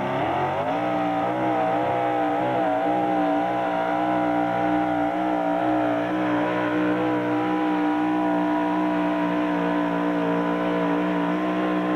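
Super modified 4x4 pulling truck's engine at full throttle through open exhaust stacks while dragging the weight sled. It revs up sharply in the first second, wavers slightly, then holds steady at high revs.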